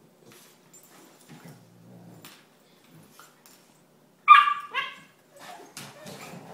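A Labrador retriever and a Chesapeake Bay retriever puppy play-wrestling. There is a faint low growl about a second and a half in, then two loud, sharp yelps a half-second apart just after four seconds, followed by scuffling and claw clicks on the wooden floor.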